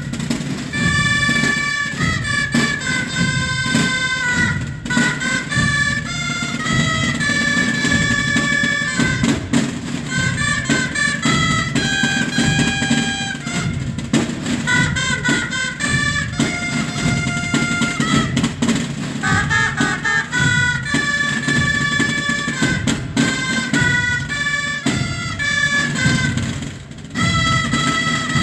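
Band music: a brass melody of held notes over a steady beat of drums.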